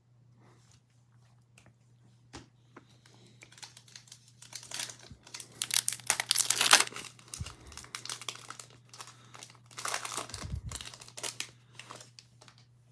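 A plastic trading-card pack wrapper being torn open and crinkled by hand, in two bouts of rustling, the louder about halfway through and a shorter one near the end, with a few small clicks and handling noises around them.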